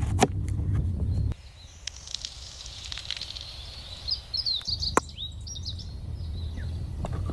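Birds chirping in short, high calls over a low rumble that cuts off abruptly a little over a second in and comes back near the middle, with a few sharp clicks.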